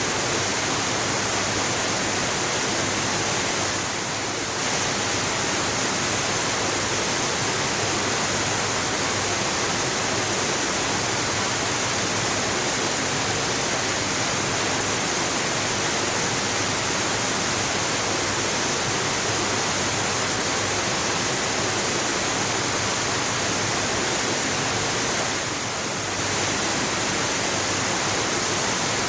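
Waterfall: a steady, unbroken rush of falling water, dipping slightly in level twice for about a second.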